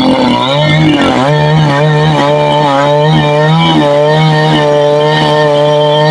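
KEIL petrol chainsaw running at high revs while cutting through a thick tree trunk. The engine note dips and wavers for about the first second as the chain bites into the wood, then holds fairly steady under load.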